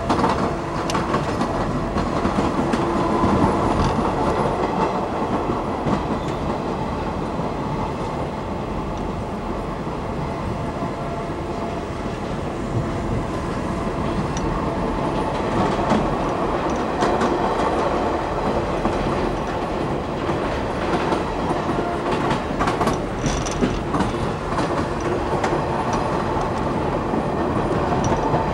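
Passenger train rolling steadily over jointed track and yard switches, its wheels clicking over the rail joints in a clickety-clack under a continuous running rumble, with a brief high wheel squeal about three-quarters of the way through.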